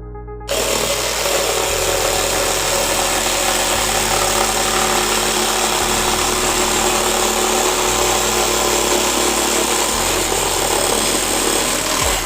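Cordless jigsaw, converted to run on a lithium battery pack, running steadily. It starts about half a second in and stops near the end.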